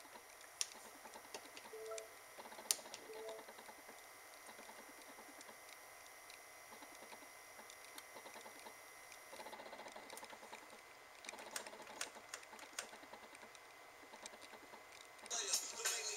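Quiet room with scattered faint clicks and a couple of short soft tones. Near the end a film soundtrack with music starts playing from the TV.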